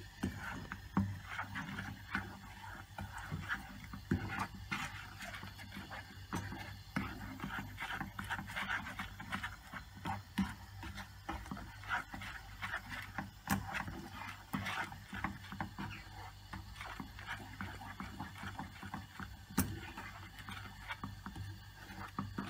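Wooden spoon scraping and knocking against a nonstick frying pan in irregular strokes as melted sugar is stirred continuously while it caramelises.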